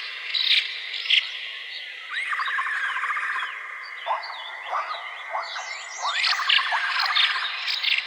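Several birds chirping and calling, with sharp short notes and groups of quick rising sweeps, over a steady faint high drone.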